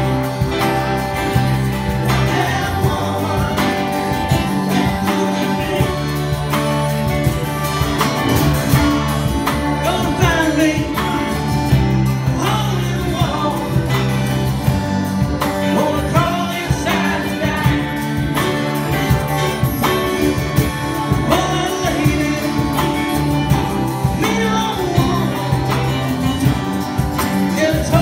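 Live band playing a song, a woman singing lead over acoustic and electric guitars, bass guitar, keyboard and a drum kit.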